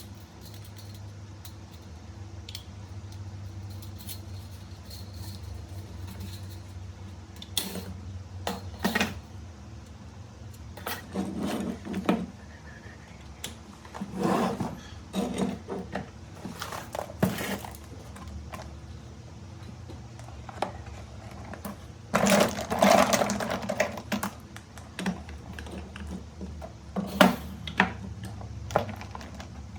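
Small hard parts being handled: scattered clicks, clinks and short rattles, busiest about 22 seconds in, over a low steady hum.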